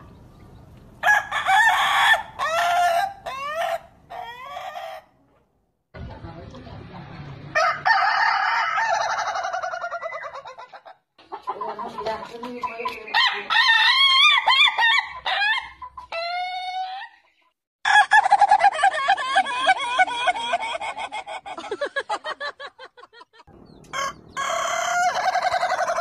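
Roosters crowing one after another, several different birds in short clips that cut off abruptly. Some crows are long calls falling in pitch at the end, others short, broken and warbling.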